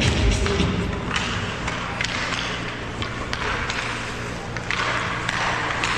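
Ice skate blades scraping and carving on the rink surface in repeated hissing strokes, with sharp clicks of hockey sticks and puck, over a steady low arena hum.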